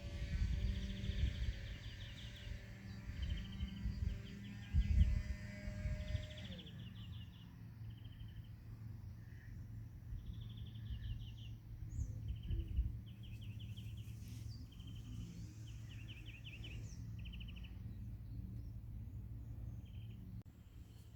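A small bird singing short, rapid trills over and over. For the first six seconds a steady hum with a few level tones runs beneath it, then drops in pitch and stops. Scattered low thumps are heard near the start.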